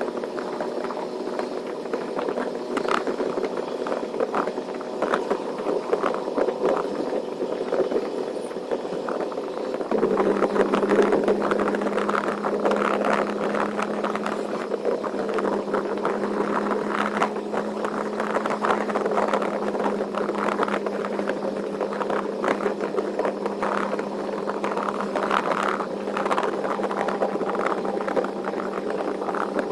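Diesel engine of a big-rig semi-truck running steadily on the highway, with rattles and ticks. About ten seconds in, its hum drops to a lower pitch and grows a little louder.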